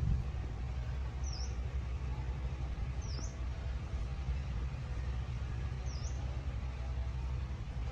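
A small bird chirping three times, each call a short high note that dips and rises, over a steady low rumble.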